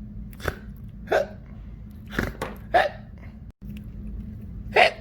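A person voicing a toy character's hiccups: about five short, sharp hics at uneven intervals.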